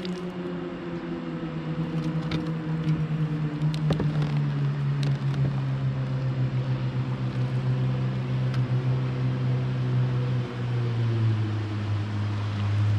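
Engine of a passing motorized watercraft droning steadily, its pitch sliding slowly lower and then dropping a step about ten seconds in. A few light knocks from a kayak paddle stroking the water sound through it.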